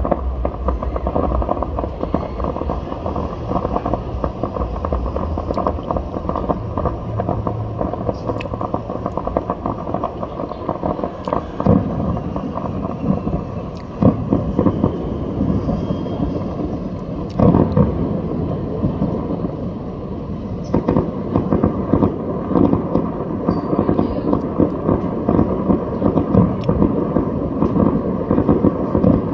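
Fireworks display going off continuously: a dense crackling with a low rumble, and heavier bangs about twelve, fourteen and seventeen seconds in.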